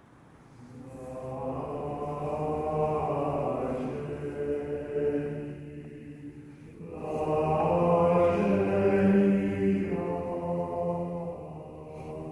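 A choir singing a cappella in slow, sustained chords. It fades in about half a second in and sings two long phrases with a short break between them.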